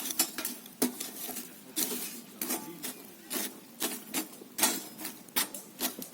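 An irregular series of sharp clicks and knocks, about two or three a second, with no steady rhythm.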